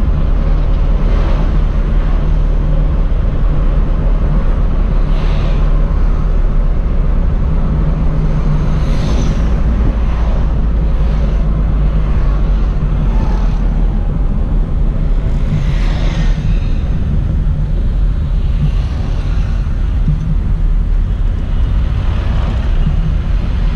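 Mitsubishi Lancer Box (A172) heard from inside the cabin while driving: a steady low engine and road rumble, with the hiss of other traffic swelling and fading several times.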